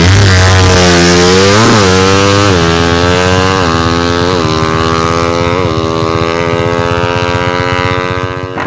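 A drag-tuned motorcycle with an open aftermarket exhaust launching hard and accelerating away. Its engine pitch climbs and drops about five times in the first six seconds as it shifts up through the gears, then holds a high, steady pitch, growing slowly fainter as the bike pulls away. The sound cuts off abruptly just before the end.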